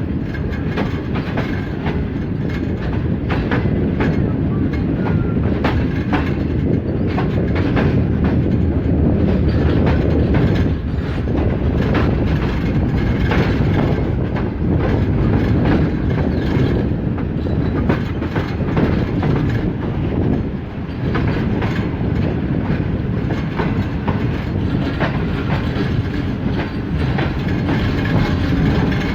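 Pakistan Railways passenger train rolling along the track, its wheels clicking over the rail joints in an irregular run of clicks.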